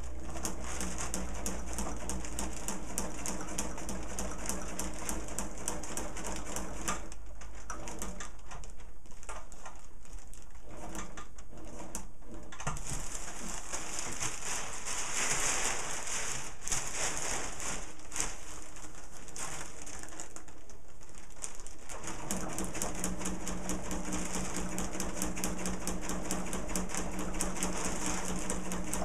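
Sewing machine running at speed, stitching a long seam through layers of kite fabric. It stops about seven seconds in while the fabric is shifted and handled with rustling, and starts stitching again about three-quarters of the way through.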